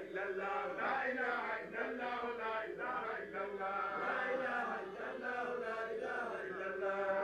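Several men's voices chanting together in a devotional chant, long held syllables with the voices overlapping at slightly different pitches.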